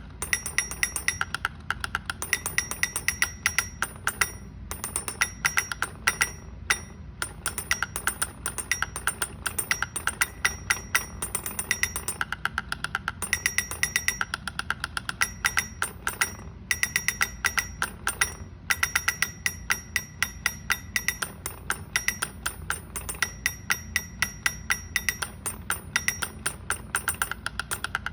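Rapid, irregular tapping clicks on something hard, several a second in long runs broken by brief pauses, each tap ringing with a clear tone.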